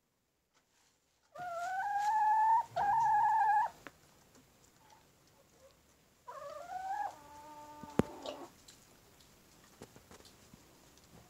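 Ayam Cemani rooster crowing: a loud crow starting about a second in, with a short break partway through, then a second, quieter crow a few seconds later. A single sharp click comes near the end of the second crow.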